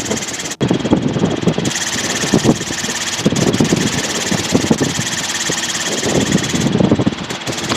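Robinson R22 helicopter's engine and rotor running steadily, heard through the cockpit intercom, with an irregular low buffeting under a steady hiss.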